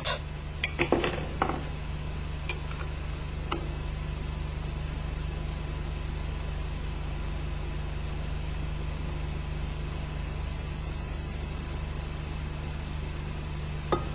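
Steady low hum with a few light metal clicks in the first couple of seconds and two sharper metal taps near the end, as the steel assembly bridge is set onto the MZ EM 251 engine's crankcase.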